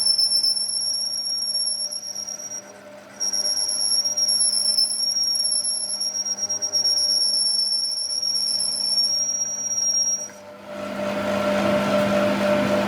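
Steady high-pitched squeal from metalworking machinery. It breaks off briefly about three seconds in and stops about ten and a half seconds in. A louder rushing noise with a low hum follows near the end.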